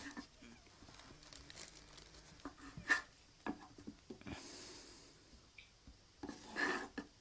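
Quiet handling noise in a kitchen: a few faint clicks and knocks as butter is put into a frying pan, with a brief hiss a little after four seconds and a breath a little after six.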